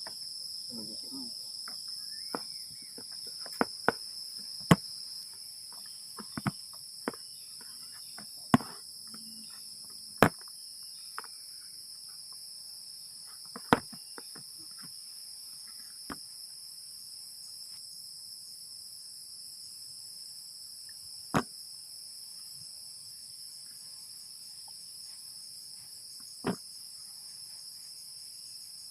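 Steady, high insect chorus, with sharp knocks and clicks at irregular intervals, several close together in the first half and a few more spread out later.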